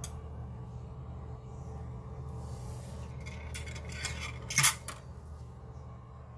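Metal parts of a sink drain assembly clinking and rubbing as they are handled and fitted, with a louder pair of sharp clinks about two-thirds of the way through.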